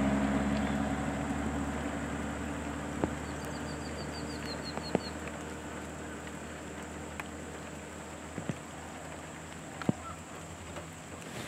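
A car's engine fading away as it drives off, leaving quiet outdoor ambience. A few seconds in, a bird gives a short trill of about ten quick descending notes, and several sharp single clicks come at intervals.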